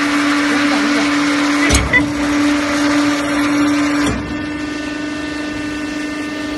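Bone pressing machine running with a steady motor hum. Two metal clunks come as the mold moves, about two seconds in and about four seconds in, and the hum drops a little after the second.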